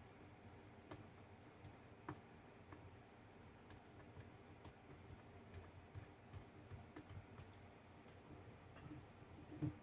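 Faint, irregular small clicks and taps from hand work on a laptop's screen assembly: plastic bezel parts and a small screwdriver being handled while the bottom screws are lined up and fitted.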